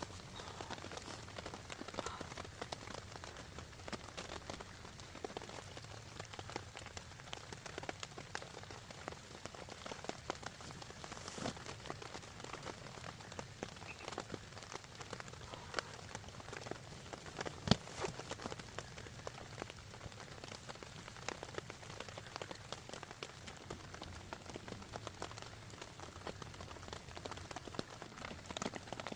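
Steady rain, with many separate drops ticking sharply over the even hiss, and one louder knock about 18 seconds in.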